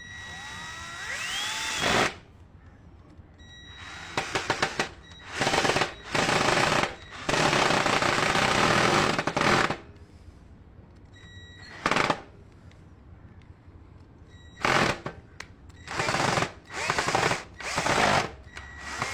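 Ken 12V cordless drill driver driving a screw of about seven inches in a series of short trigger bursts. It first spins up with a rising whine, then gives about eight harsh rapid rattling bursts as the long screw stalls and the bit skips, leaving the screw head too damaged to use.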